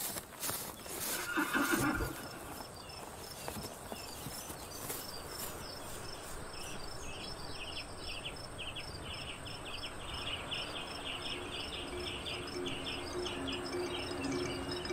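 A horse neighs loudly about a second in. A fast run of light, high ticks follows; music comes in near the end.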